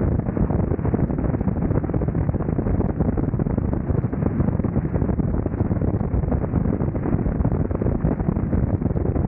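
Steady wind rush buffeting the camera microphone on a Kawasaki Vulcan 900 motorcycle at highway speed, about 65 mph, with the bike's engine and road noise running underneath.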